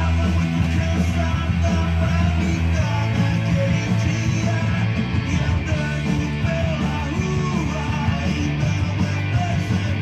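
Rock music playing loudly and steadily, with guitar and a singing voice.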